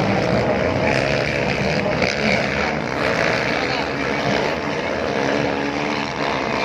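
A pack of motocross bikes racing, many engines running at once in a steady, dense din.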